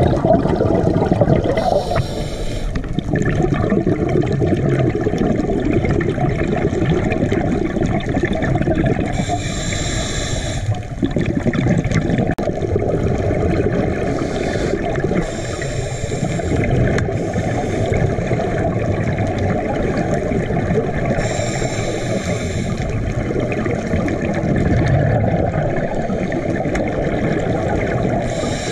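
Scuba regulator breathing underwater: exhaled bubbles gurgling and rumbling, with a brief hiss every several seconds as a breath is drawn through the regulator.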